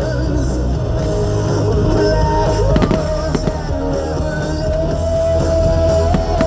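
Rock music with singing plays loudly and steadily for a fireworks display. A few firework bangs break through, one plainly about three seconds in.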